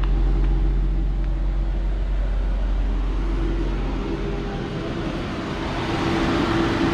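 An Infiniti G35 sedan's V6 engine idling steadily, a low even rumble with a steady hum over it.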